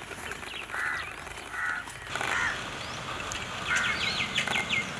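Birds calling: several short calls spaced about half a second to a second apart, then a quick run of rising high chirps near the end.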